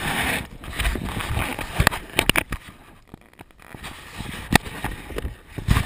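Camera handling noise: rubbing and scuffing on the camera as it is moved about, with several sharp knocks.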